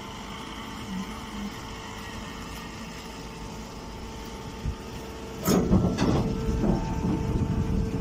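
Electric straw baler running with a steady hum. About five and a half seconds in, it breaks into a louder, rough clattering rumble that continues as the machine works a bale.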